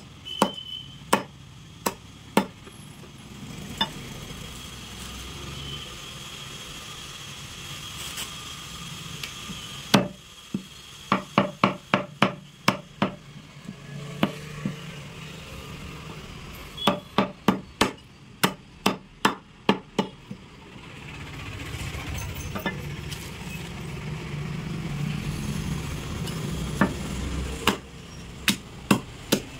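Butcher's cleaver chopping through goat head and leg pieces on a chopping block: sharp single blows and quick runs of strikes about three a second, with pauses between the runs. A low rumble builds in the background for several seconds late on.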